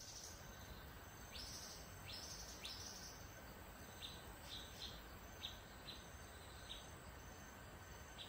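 Faint outdoor ambience: birds chirping in short, scattered calls over a low steady background hum.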